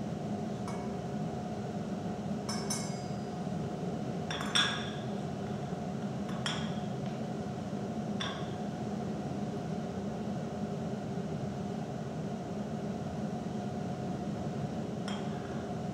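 Glass altar cruets clinking at the preparation of the wine and water for the chalice: about half a dozen light, ringing clinks, the loudest about four and a half seconds in, over a steady room hum.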